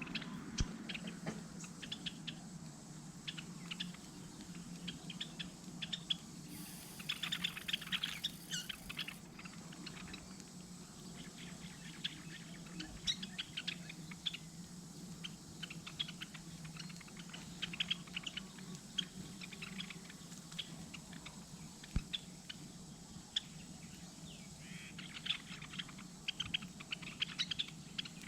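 Small birds at a feeder: scattered quick, high chirps and clicks, thickening into busy flurries twice, over a steady low hum.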